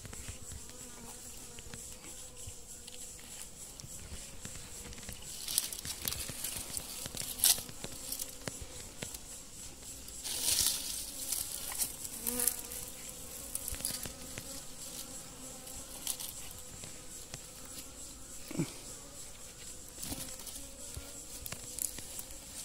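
Bees buzzing at a nest in a rock crevice, a steady wavering drone, with a few sharp clicks and rustles scattered through it, the loudest about seven and ten seconds in.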